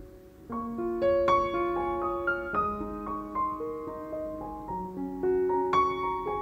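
Background music: a gentle piano melody of single held notes, entering about half a second in.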